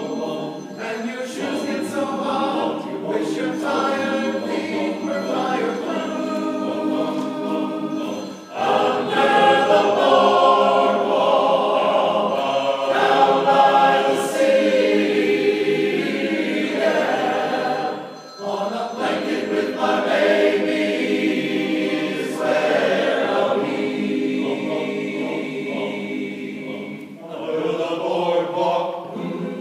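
Men's chorus singing, with short breaks between phrases about eight and eighteen seconds in, fuller and louder after the first break.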